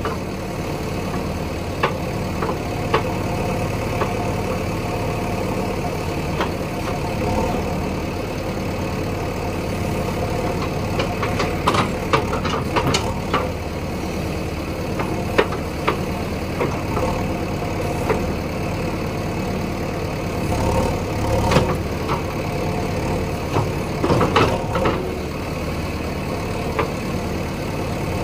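Heavy diesel engine running steadily at low revs, with sharp metallic knocks and clanks every few seconds, most of them around the middle and toward the end.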